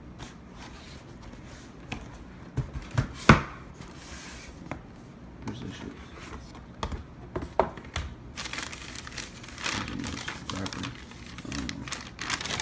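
Cardboard shoebox being opened, with a few sharp knocks as the lid is handled, the loudest about three seconds in. This is followed by tissue paper crinkling and rustling inside the box from about eight seconds on.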